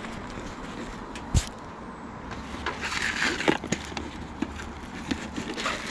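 Handling noises from work at the top of a chimney over a steady low outdoor rumble: a sharp knock about 1.4 seconds in, a stretch of scraping about halfway through, then several short clicks and taps.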